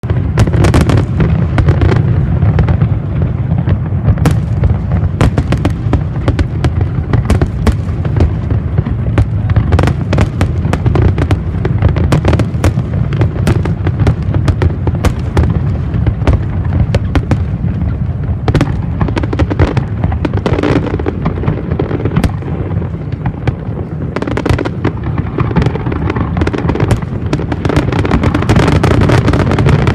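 Fireworks show: a dense, continuous barrage of shells bursting, with many sharp cracks over a constant deep rumble of booms.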